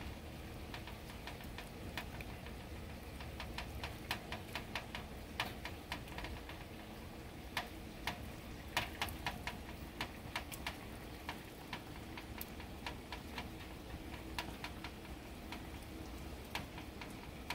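Light, irregular clicks and taps of basting: a silicone brush dipping into a stainless steel saucepan and dabbing barbecue sauce onto chicken wings on a wire rack, over a faint steady low hum.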